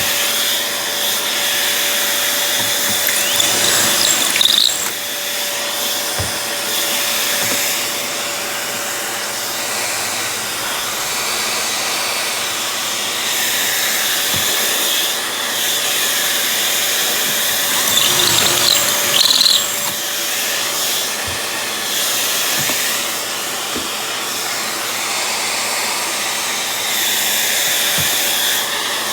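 A power tool's motor runs steadily, swelling louder briefly about 4 seconds in and again about 19 seconds in.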